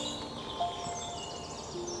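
Slow, soft instrumental music of long held notes, a new note entering about half a second in and another near the end, with small birds chirping and trilling over it.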